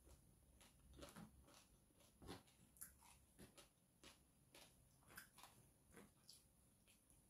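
Faint, scattered small clicks and crackles of fingers picking flakes of crispy deep-fried mackerel off a tray, with quiet chewing.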